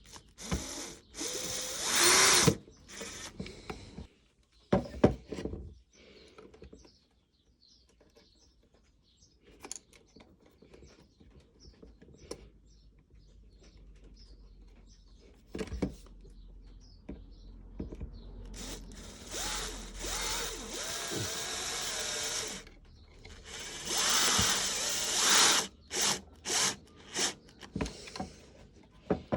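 Cordless power drill-driver driving the screws that fix a light switch into its wall box, its motor running in a few runs of several seconds with a wavering pitch. Short bursts and clicks come near the end.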